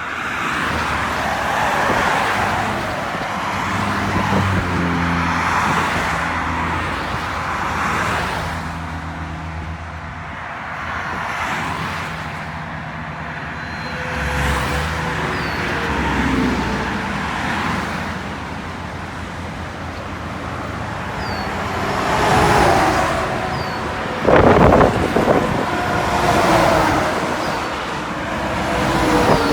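Car and road traffic noise: a car engine running, with tyre and road noise, and a few louder rushing swells in the last third.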